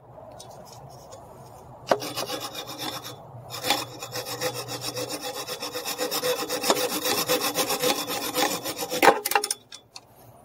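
Hacksaw cutting through a steel power steering line in quick back-and-forth strokes. The strokes are faint at first, louder from about two seconds in, and stop shortly before the end.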